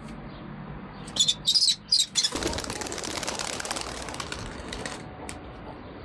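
Kestrel chicks: a few loud, high calls about a second in, then a rapid flutter of wings lasting two or three seconds as a chick flaps while held in the hand.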